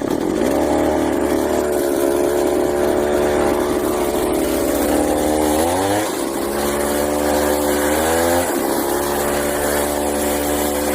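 Homelite chainsaw two-stroke engine on a friction-drive bicycle running steadily, revving up twice, about five seconds in and again about eight seconds in, and dropping back sharply each time. Its new carburetor is untuned and, by the rider's account, still needs jetting.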